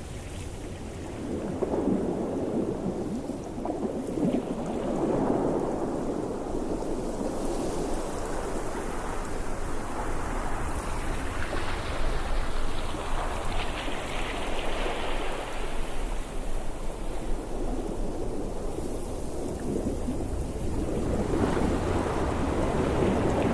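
Ocean waves breaking and washing on the shore, a steady rush of surf that swells several times, strongest about two, five, twelve to fifteen and twenty-two seconds in.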